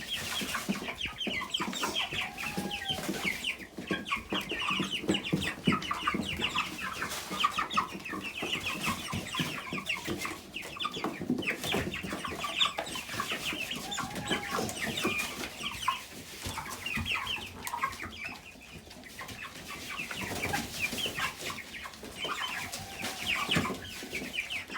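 A flock of chickens clucking and cheeping without a break, with a few louder drawn-out squawks and some scattered knocks.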